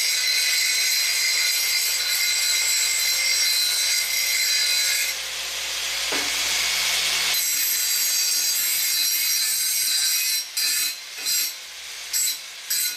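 Angle grinder running with its disc against the end of a thin, rusty steel exhaust pipe, a steady high-pitched grinding whine as it takes off the rough edges and rust ahead of a butt weld. The sound turns harsher and hissier for a couple of seconds about halfway through. Near the end it breaks into several short bursts.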